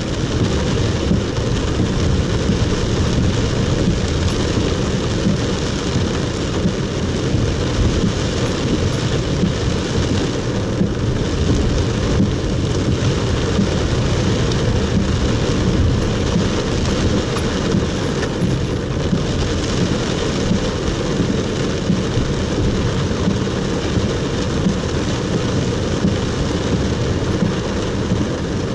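Heavy rain on a moving car's roof and windscreen, heard from inside the cabin together with road noise on the wet street. It is a steady, dense noise, heaviest in the low range.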